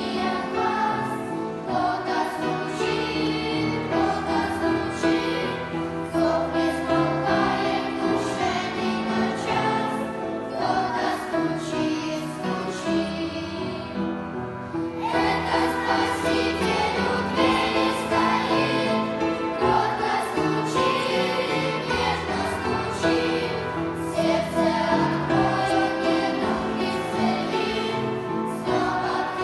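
Sunday school choir singing a Christian song over an instrumental accompaniment.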